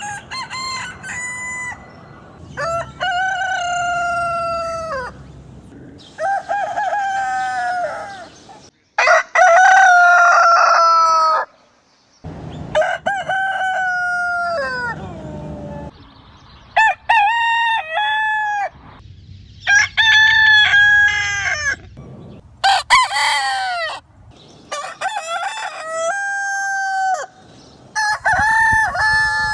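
Roosters crowing one after another, about ten cock-a-doodle-doo calls from different birds, each a couple of seconds long, with short gaps and abrupt cuts between them.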